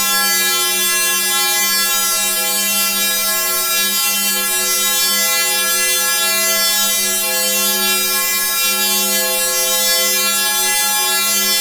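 Synthesized 'sparkly' chord sound effect: a steady, sustained chord of many held tones with shimmering high overtones, holding at an even level.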